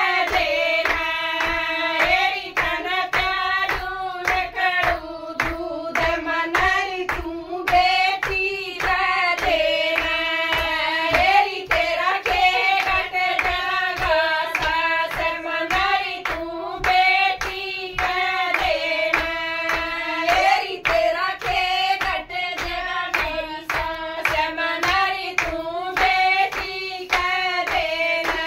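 A group of women singing a Hindi devotional folk bhajan together, keeping a steady beat with hand claps.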